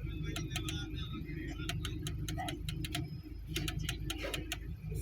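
Rapid clicking of a car's air-conditioning temperature control as it is turned back down from hot, in quick runs of several clicks, over a steady low hum.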